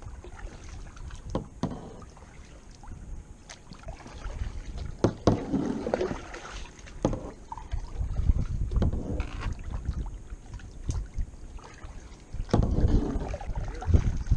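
Kayak on the water: paddle strokes splashing and water sloshing against the hull in irregular bursts, with a low rumble underneath and a few light knocks.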